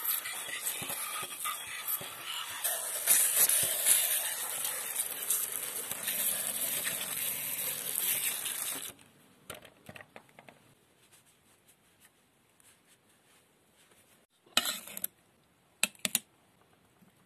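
Water from a garden-hose spray nozzle hissing and splashing onto a steel chisel and the glass plate under it. It stops abruptly about nine seconds in. Near the end come two brief, sharp sounds of the steel chisel being handled on a glass plate.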